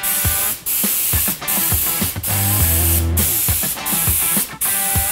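Compressed-air gravity-feed mini spray gun hissing as it lays violet paint on a bike frame, in short passes broken by a brief trigger release roughly every three-quarters of a second. Background music plays underneath.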